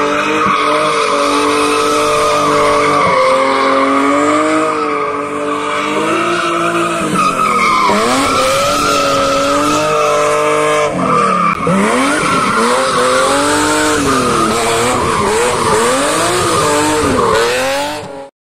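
BMW E36 drifting in tight circles: the engine is held at high revs with tyres squealing steadily, and in the second half the revs dip and rise again and again as the throttle is worked. The sound cuts off suddenly near the end.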